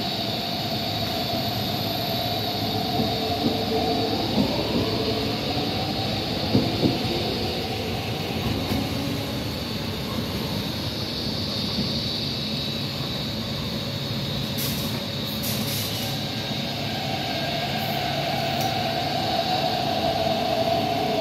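MTR electric trains running through a station: a steady rumble of wheels on rail with the whine of traction motors. The whine rises in pitch a few seconds in as a train pulls away, and returns near the end as another train passes close. A few sharp clicks come from the wheels over the track.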